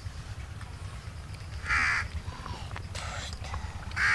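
Crow cawing: three short, harsh caws about a second apart, the middle one weaker.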